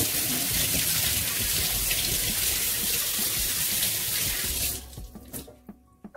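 Kitchen tap running full into a sink, a steady hiss of water that is shut off abruptly after about five seconds.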